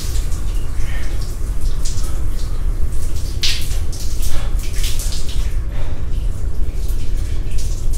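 Shower running: a steady spray of water falling on a person and the tiled floor, with irregular louder splashes as he rinses and rubs his hair.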